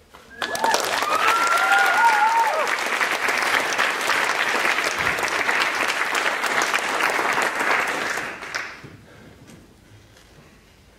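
Audience applauding after an aerial straps routine, with a few high cheering calls over the clapping in the first couple of seconds; the applause dies away about eight and a half seconds in.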